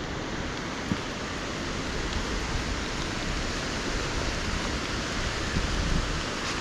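Steady rush of fast-running water from a nearby waterfall and stream, with a single short click about a second in.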